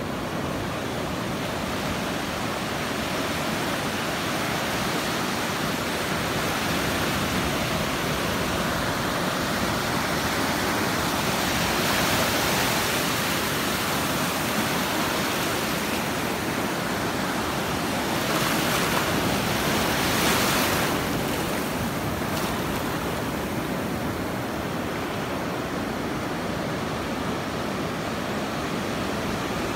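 Ocean surf breaking and shallow wash running over sand: a steady rush of water, with louder surges about twelve seconds in and again around twenty seconds.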